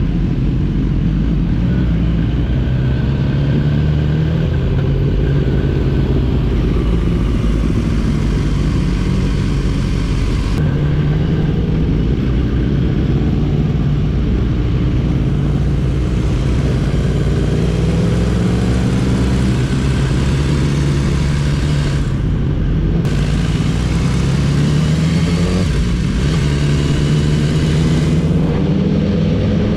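Motorcycle engine heard from the rider's seat, its pitch climbing and dropping back again and again as it accelerates and eases off, over steady wind and road noise.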